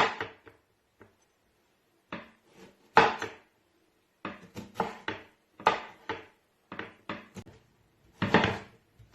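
Kitchen knife cutting a lemon into pieces on a cutting board: a string of irregular knocks as the blade goes through the fruit and strikes the board, with a pause of about a second and a half near the start.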